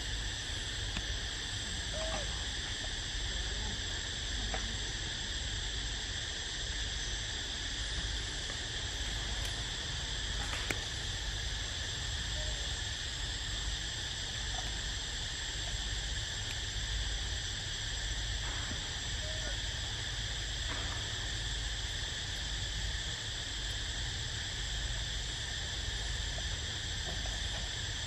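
Steady chorus of forest insects, several unbroken high-pitched tones layered together, over a low rumble.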